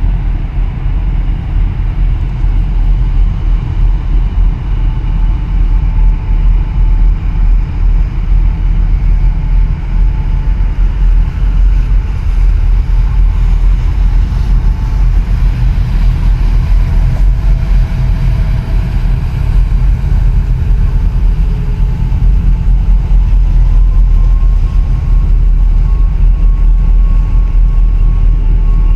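Steady heavy low rumble as a large container ship passes at close range, mixed with wind buffeting the microphone. Faint engine whines come and go over it, one starting about two-thirds of the way through.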